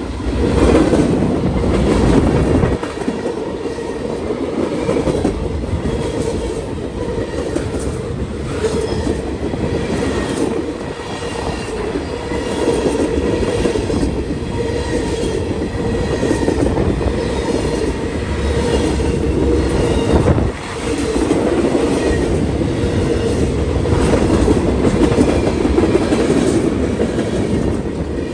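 Train cars rolling past: a steady rumble of wheels on rail, with repeated clicks as the wheels cross rail joints.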